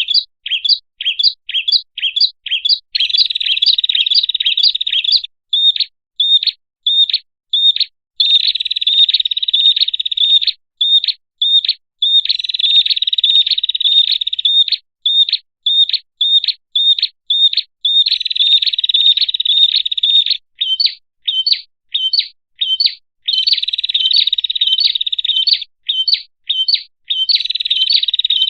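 Prenjak lure call: a small songbird chirping high and fast, with stretches of rapid trilling alternating with runs of separate sharp chirps, about three a second, repeating over and over.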